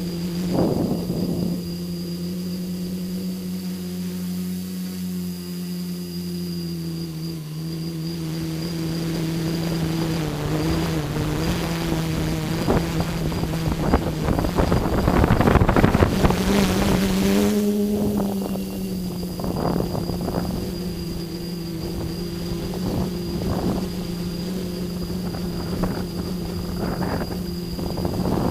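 Tricopter's electric motors and propellers humming steadily in flight, heard from the onboard camera. Wind rushes over the microphone, loudest about 14 to 18 seconds in, where the motor pitch briefly rises.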